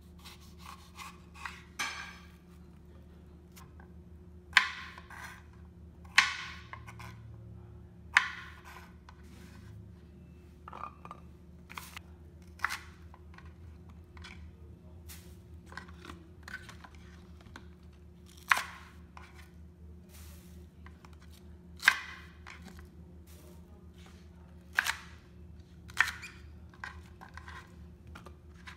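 Kitchen knife cutting a lemon and then green onions on a cutting board: sharp, separate knocks of the blade meeting the board at irregular intervals, over a faint steady hum.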